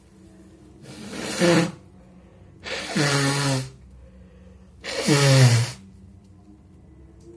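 A man sneezing three times in a row, about two seconds apart: each sneeze is loud and noisy, with his voice falling in pitch through it.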